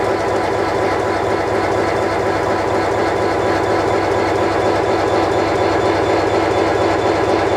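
Irish Rail Class 071 diesel-electric locomotive's EMD twelve-cylinder two-stroke engine running alongside the platform, a steady, unchanging drone.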